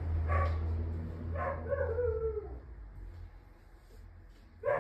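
A dog's short bark, then a longer whine falling in pitch, over a low hum that fades out about halfway through; a sudden louder sound comes at the very end.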